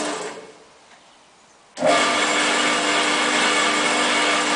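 Two-speed metal-cutting band saw switched off, its motor and blade running down to quiet. About two seconds in it is switched back on and starts abruptly, then runs steadily with a hum and a whine.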